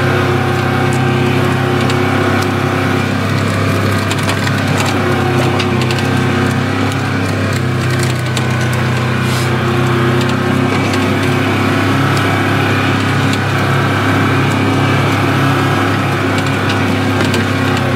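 Side-by-side UTV engine running steadily at a low, even speed, with scattered light crackles and clicks over it.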